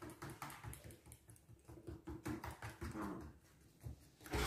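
Spoon stirring flour into a thick batter in a mixing bowl: soft irregular scrapes and taps of the spoon against the bowl, a few per second.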